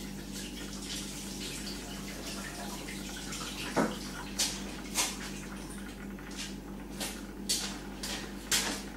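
Tap water running into a kitchen sink, then footsteps on a tiled floor, about two a second, from about four seconds in.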